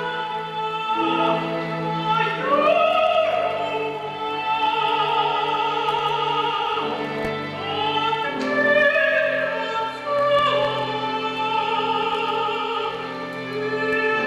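Mezzo-soprano singing long held notes over a chamber orchestra, the melody moving slowly in steps above sustained notes in the accompaniment.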